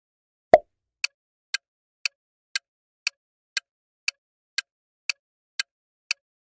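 Countdown timer sound effect: a clock ticking steadily, about two ticks a second, after one louder knock about half a second in.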